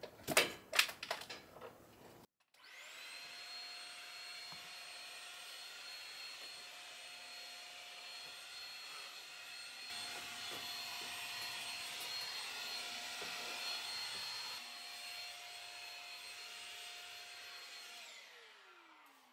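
A few knocks from handling, then a handheld vacuum cleaner switched on. Its motor spins up to a steady whine over rushing air and runs, a little louder for a while midway. Near the end it is switched off and winds down with a falling pitch.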